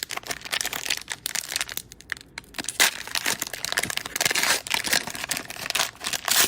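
Cellophane trading-card pack wrapper crinkling and crumpling in the hands, with irregular sharp crackles throughout.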